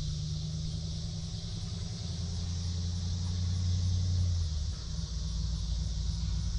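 Cicadas buzzing in a steady high chorus over a loud, low mechanical hum, which drops in level about four and a half seconds in.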